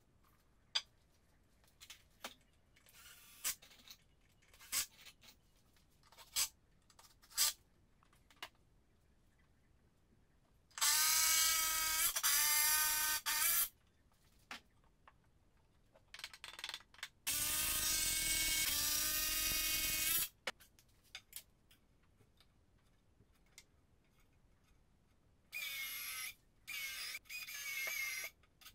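Electric drill motor whining in trigger-pulled runs: two runs of a few seconds each, then three shorter bursts near the end that spin up in pitch. Before them come scattered knocks and clicks of wood and tools being handled.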